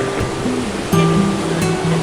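Background music with slow, held bass notes that step between pitches, over the steady rush of a waterfall.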